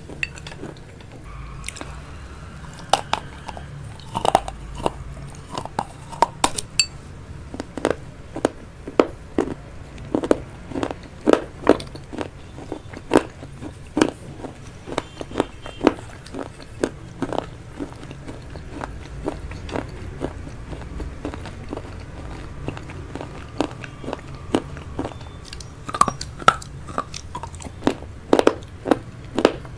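Close-miked chewing of vegetable chow mein noodles, with frequent sharp mouth clicks, about one or two a second.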